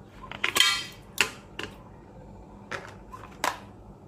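Raw mutton pieces tipped from a plastic colander into an empty stainless steel pressure cooker, knocking and clanking on the steel with a brief ring. A cluster of knocks comes in the first second, then single knocks follow about once a second.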